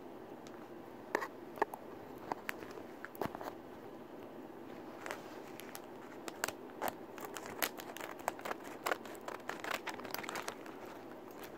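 Plastic blind-bag packaging of a Kreo Micro Changers toy crinkling and crackling as it is handled, in scattered sharp crackles that come more often from about five seconds in.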